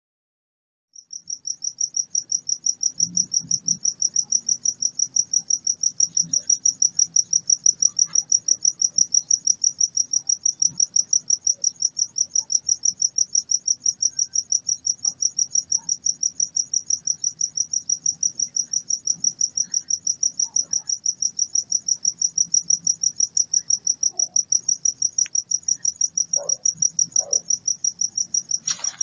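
An insect chirping loudly at a high pitch in a fast, even rhythm of about five chirps a second, with a faint low hum beneath.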